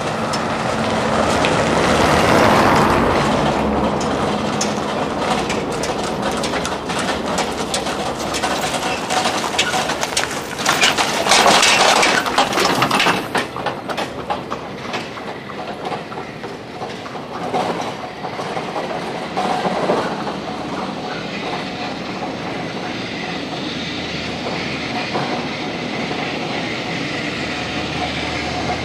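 A car drives past, then a horse-drawn cart clatters by with hooves and wheels on the road, loudest about eleven to twelve seconds in. After that the street settles to a quieter steady noise.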